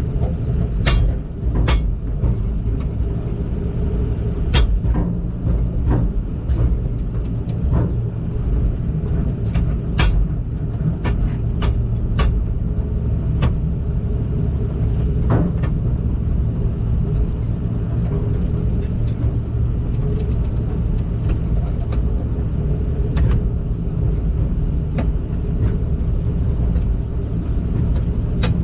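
Heavy machine's engine running steadily with a low rumble, and scattered short clicks and rattles.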